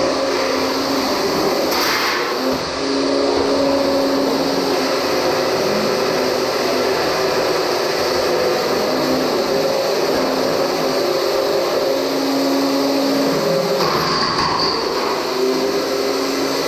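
Beetleweight combat robots fighting: their spinning weapons and drive motors whine at steady pitches that cut in and out over a constant noisy din, with one sharp metal hit about two seconds in.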